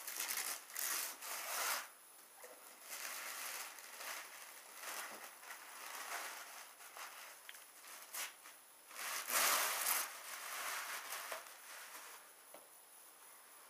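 Thin white wrapping crinkling and rustling as it is pulled and torn off a cardboard doll box, in uneven bursts, loudest a little past halfway, dying down near the end.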